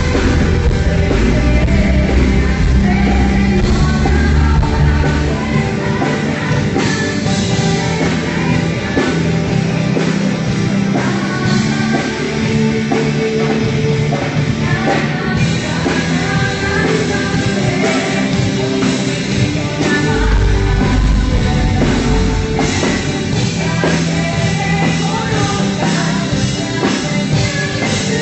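Live rock band playing loud through a PA, with several women singing into microphones over drums and amplified instruments. The deep bass thins out about five seconds in and comes back strongly around twenty seconds in.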